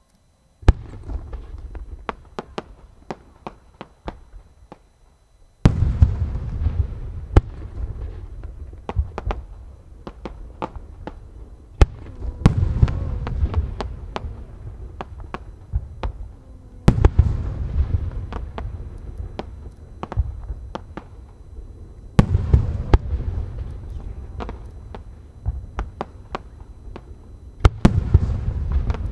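Aerial firework shells bursting one after another, about every five seconds: each sudden boom is followed by a low rolling echo and a scatter of sharp cracks and pops.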